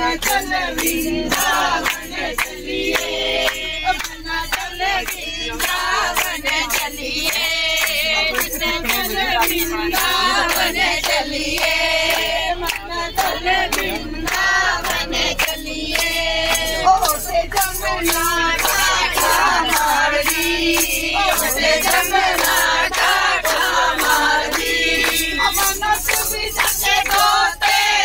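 A group of women and men singing a song together in chorus, with hand claps keeping time at about two a second.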